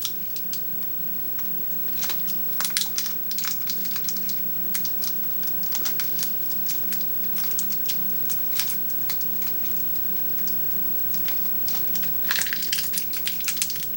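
Close-up chewing of a raspberry Kit Kat's crisp wafer: irregular crunches, with a denser burst of crunching near the end.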